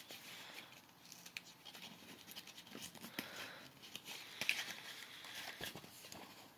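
Packaging being handled: faint scratchy rustles with scattered light clicks and taps, the loudest rustle a little past the middle.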